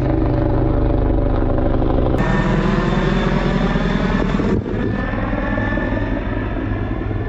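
Helicopter flying overhead, the loud, steady beat of its rotor and turbine running throughout. The sound changes abruptly twice, about two seconds in and again just past four seconds, where the footage is cut.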